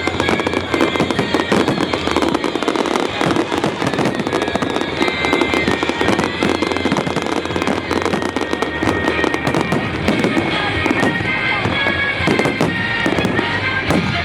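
A fireworks barrage going off without a break: dense crackling and popping bursts, with music playing underneath.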